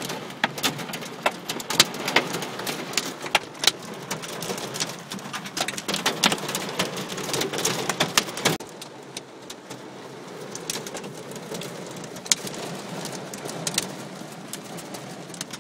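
Hailstones hitting a car's roof and windscreen, heard from inside the cabin: a dense clatter of sharp ticks and cracks over a rain-like hiss, thinning out to scattered hits and a duller patter about halfway through.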